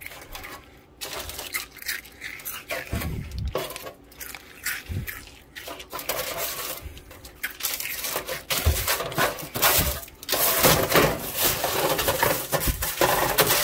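Parchment paper rustling and crinkling on a metal sheet pan, with light clicks and taps as burnt scraps are picked off it. The crinkling gets louder and denser from about ten seconds in, as the paper is folded up.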